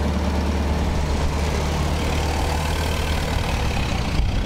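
Ford Model T's four-cylinder engine running with a steady low drone.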